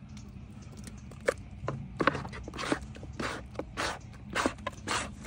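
Spoon scooping thick dog-food mash out of a pot into a bowl, scraping in a run of irregular strokes that starts about a second in and comes faster toward the end.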